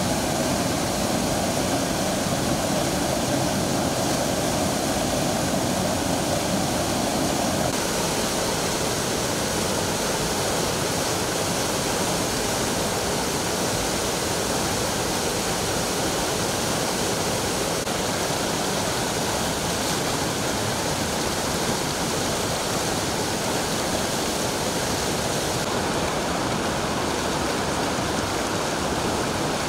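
Muddy floodwater of a river in spate rushing and churning over rocks: a steady, unbroken rush of water noise. About eight seconds in, the deeper part of the rush drops away.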